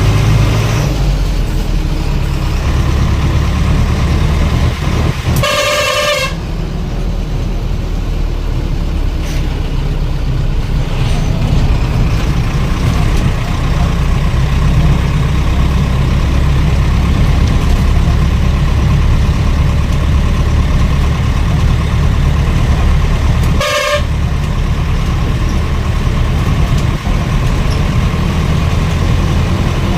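Steady low rumble of a running vehicle, with a horn sounding twice: a short blast about six seconds in and a shorter one near 24 seconds.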